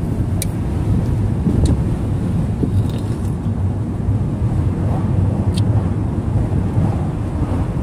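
Steady low rumble of a car's road and engine noise, heard from inside the cabin while driving, with a few faint clicks.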